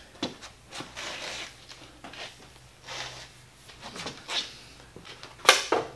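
Small metal tools being handled on a metal planer's table: light scrapes and clicks as a surface gauge is picked up, with one sharp metallic clink near the end.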